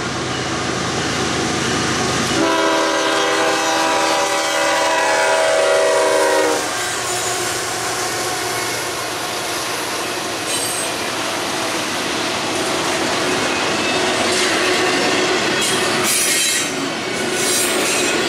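Freight locomotive's horn sounds one blast of about four seconds, a couple of seconds in, sagging slightly in pitch before it stops. Then the double-stack intermodal cars roll by with steady wheel-on-rail noise, with a brief high wheel squeal near the end.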